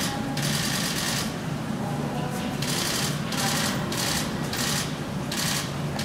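Repeated short bursts of rattling and clattering as an Amur tiger yanks and tears at meat hung on a rope, several tugs a second apart.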